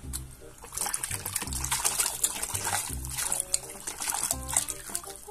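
Water splashing and sloshing in a plastic basin as a toy car is scrubbed in it, starting about a second in. Background music with a steady beat plays throughout.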